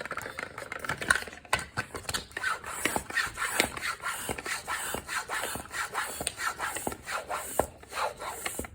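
Bicycle hand pump worked in quick strokes, rubbing and hissing as it puts a little air into a new mountain-bike inner tube.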